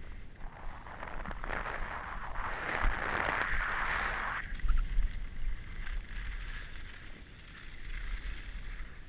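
Skis sliding and scraping on packed snow, loudest from about half a second to four and a half seconds in, with low wind buffeting on the microphone throughout.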